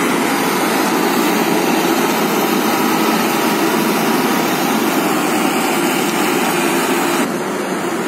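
Large diesel engine running steadily at close range, a little quieter near the end.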